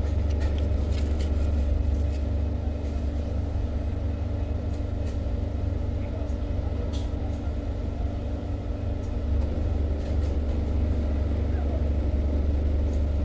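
Car engine idling, heard from inside the cabin as a steady low rumble, with a few faint clicks over it.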